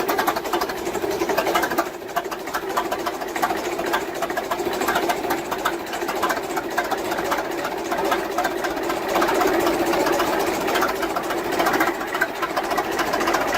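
An old machine running with a fast, even mechanical clatter of rapid clicks over a steady hum.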